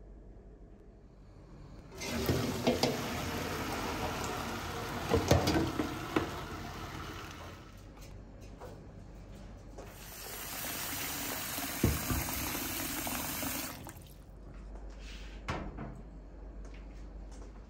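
Water from a kitchen tap running into a bowl at a stainless-steel sink, in two spells of several seconds each, with a few knocks as the bowl is handled: shelled broad beans being rinsed.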